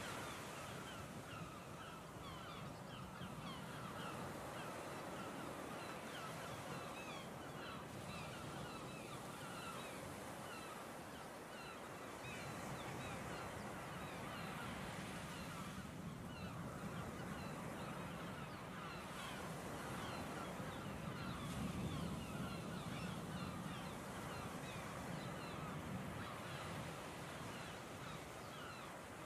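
A large flock of birds calling over one another without pause, over a low steady background rumble that grows a little stronger in the middle.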